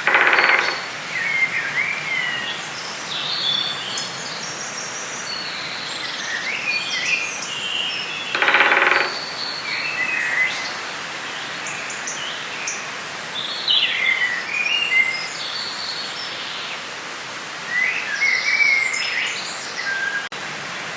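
Forest ambience: many songbirds chirping and trilling over a steady hiss of background noise. A louder, buzzy call lasting about half a second sounds right at the start and again about eight seconds in.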